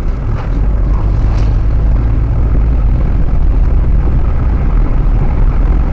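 Steady road and engine rumble inside the cabin of a Maruti Suzuki WagonR driving at speed on a highway.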